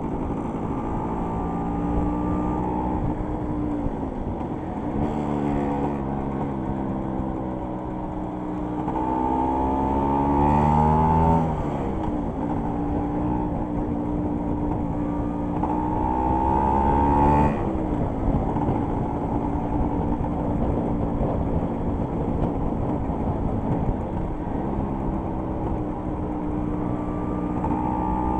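Small scooter engine heard from the rider's seat while under way. Its note climbs as the revs build and drops sharply at gear changes, most plainly about 11 and 17 seconds in. It eases and picks up again around 4 and 24 seconds in.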